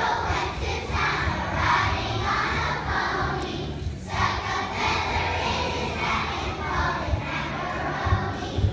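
A large children's choir singing loudly together in phrases, with a short break about four seconds in.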